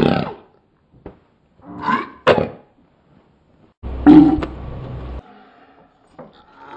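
A woman's coughs slowed down, so each cough is stretched into a deep, drawn-out, roar-like burst. One comes at the start, two close together about two seconds in, and a longer one of over a second about four seconds in.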